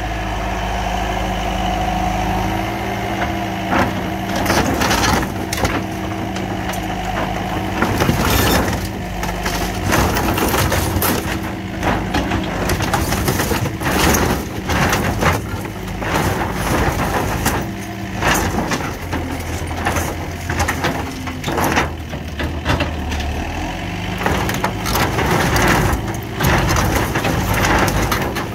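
Komatsu skid steer's diesel engine running steadily while its grapple crushes an old camper, with repeated cracking and splintering of the wooden frame and crumpling of the sheet-metal siding.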